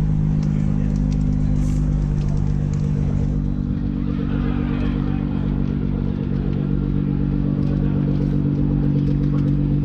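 Nissan GT-R50 by Italdesign's twin-turbo 3.8-litre V6 idling steadily at a constant pitch.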